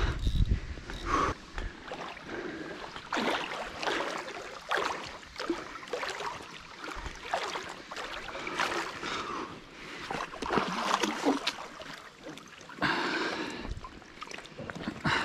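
Water splashing and sloshing as a large wels catfish thrashes at the surface while being played on a rod.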